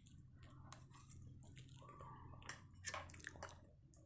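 A person chewing a mouthful of soft Maggi noodles, with faint wet mouth smacks and clicks that come most thickly about three seconds in.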